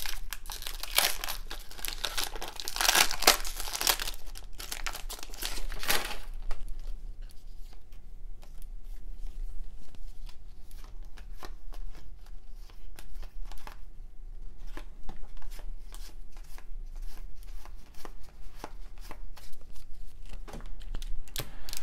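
A 1993 Topps baseball card pack wrapper being torn open and crinkled, loud and crackly for about the first six seconds. Then come the softer flicks and clicks of the cards being thumbed through one by one.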